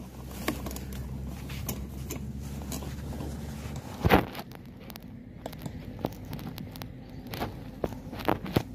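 A steady low hum that stops about four seconds in with one loud, sharp crack, followed by scattered light clicks and knocks.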